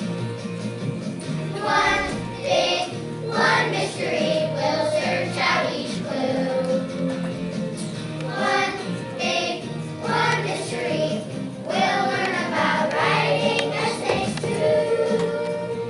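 A children's choir singing a song in unison over backing music.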